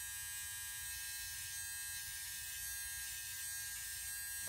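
Electric hair trimmer running with a steady, even hum, held against the back of a man's neck to shave the lower hairline.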